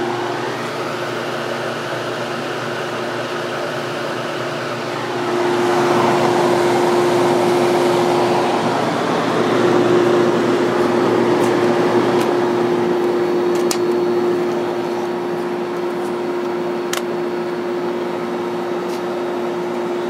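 1970s Whirlpool 6,000 BTU window air conditioner running, its fan on medium: a steady loud hum with air rushing from the grille. From about five seconds in the rush grows louder for around ten seconds, then settles, with a few faint clicks near the end.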